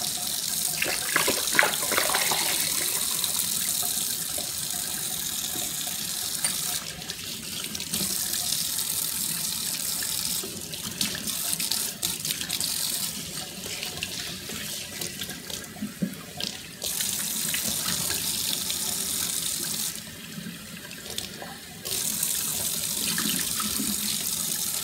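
Kitchen faucet running into a stainless steel sink as a glass beer bottle is rinsed and scrubbed under the stream. The flow sound changes and drops back several times as the bottle and hands break the stream, with a few light knocks and clatters.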